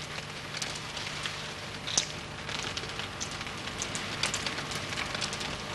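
A thin stream of liquid trickling from a spoon onto a potted plant, with irregular small ticks of drops hitting leaves and soil.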